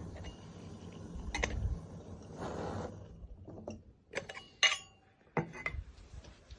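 Scattered clicks and light knocks of small objects being handled, with a brief rustle near the middle.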